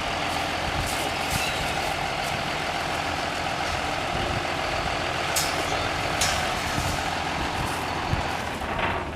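Vehicle engine running steadily, with a few sharp clicks over it; it dies away near the end.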